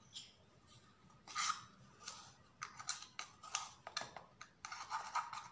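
Plastic measuring spoon scraping and clicking in a container of baking powder as a spoonful is scooped out. A run of light, irregular clicks and scrapes begins a little over a second in.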